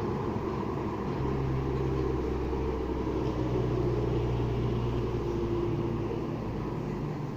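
Road traffic: a car's low engine hum builds from about a second in and eases off near the end, over a steady hiss of wind in leaves.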